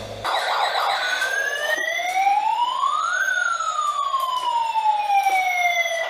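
Toy fire truck's electronic siren sounding one slow wail: the pitch rises for about two seconds, then falls more slowly for nearly three.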